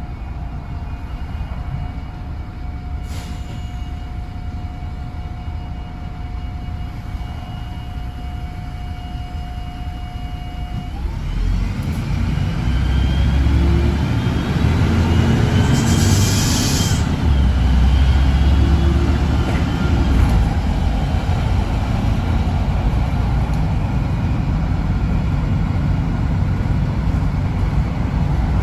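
MAN 18.240 single-deck bus's diesel engine heard from on board. It runs quietly at first with a steady thin whine, then pulls away with a building low rumble about 11 seconds in. A short hiss of air comes about 16 seconds in.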